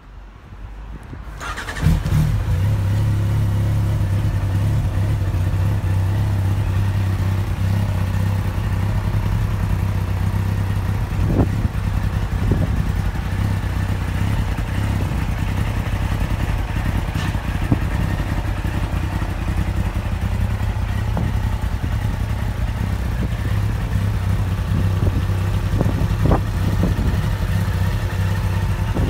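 Yamaha XJR1300 SP's air-cooled inline-four engine, fitted with aftermarket exhausts, starting up about two seconds in and then idling steadily.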